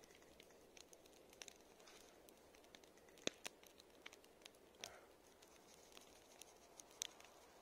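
Near silence with a few faint, scattered clicks and taps as salt and pepper are shaken from a small bottle onto raw pork neck.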